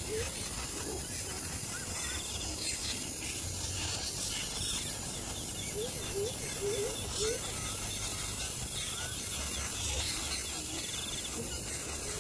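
A quick run of short rising chirps about six to seven seconds in, with a few fainter ones elsewhere, over a steady hiss and low hum. A faint rapid trill repeats high up several times.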